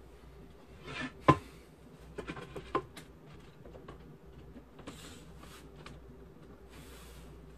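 Wooden door trim being handled and pressed into place against the door frame: scattered knocks and taps of wood on wood, the sharpest about a second in, with brief rustling and brushing near the middle and end.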